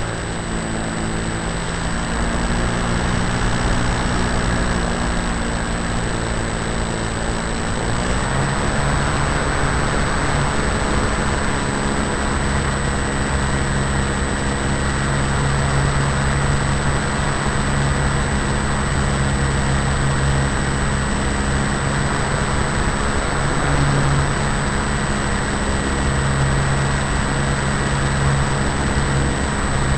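RC model Tiger Moth's motor and propeller running in flight, heard close up from a camera on board the plane over a steady rush of air noise. The motor's pitch changes with a throttle adjustment about eight seconds in, then holds steady.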